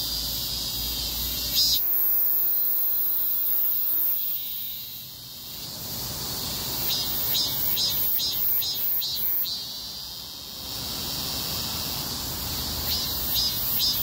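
Cicadas singing: a high buzz that turns into a pulsing call at about two to three pulses a second, once in the middle and again near the end. About two seconds in, a held pitched tone with overtones sounds for about two seconds and slides down as it stops.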